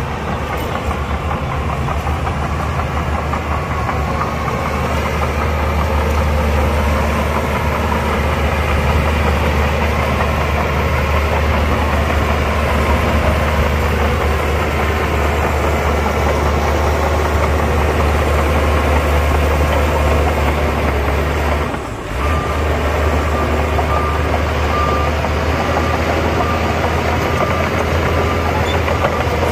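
Heavy diesel engine of earthmoving machinery running steadily, a deep rumble that dips briefly about three-quarters of the way through.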